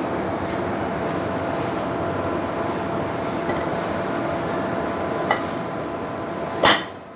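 Steady mechanical hum with a faint click about five seconds in and a sharp knock near the end, after which the hum drops away.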